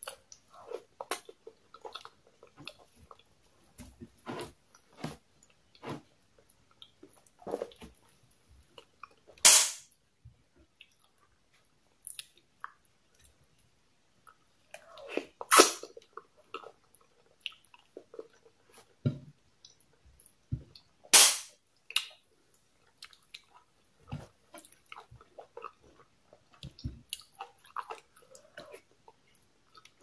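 Close-miked chewing and wet mouth sounds of a person eating pounded yam with okra soup and goat meat, with many small clicks and smacks. Three much louder, sharp smacks stand out, spaced about six seconds apart from about a third of the way in.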